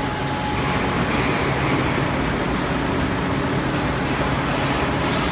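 Steady industrial machinery noise from an aluminium melting-furnace plant: a continuous rumble and hiss with a low hum underneath.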